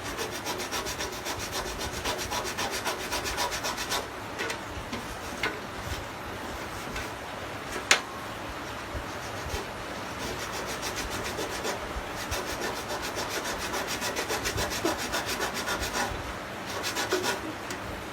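Quick back-and-forth scrubbing strokes, several a second, on the aluminum refrigerator evaporator, cleaning thick dirt off the surface around the holes so they can be patched. One sharp click about eight seconds in.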